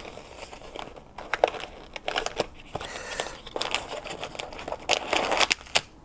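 Cardboard product box being opened and unpacked by hand: rustling, scraping and crinkling of the packaging with scattered sharp clicks and taps. The crinkling grows busier about three and a half seconds in.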